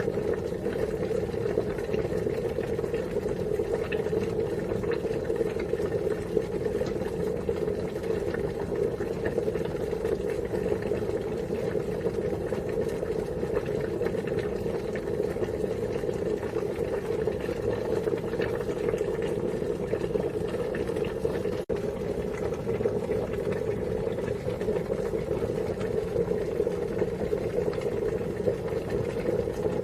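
Water boiling, a steady continuous bubbling, with one momentary break about two-thirds of the way through.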